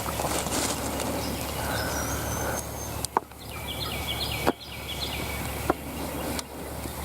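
Songbirds singing short whistled phrases that step up and down in pitch, with three sharp clicks in the second half over a steady low hum.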